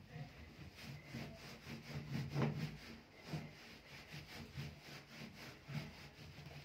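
Hand scrubbing on the grimy metal side panel of a gas cooker, in repeated back-and-forth rubbing strokes.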